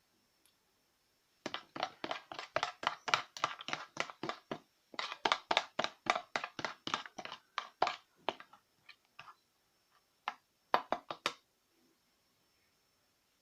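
Kitchen utensil working at the lemon-and-ginger mixture: a rapid run of short, sharp strokes, about four to five a second, for several seconds, then a few scattered strokes near the end.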